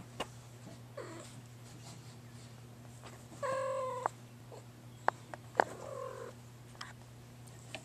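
Grey tabby kitten meowing: one clear, level meow about three and a half seconds in and a shorter, rougher one around six seconds, with a small falling mew near the start. A few sharp clicks come just before the second meow, over a steady low hum.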